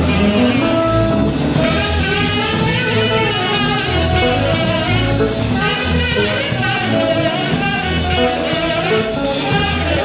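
Live rock band playing, with a saxophone carrying the lead over electric guitars and drums.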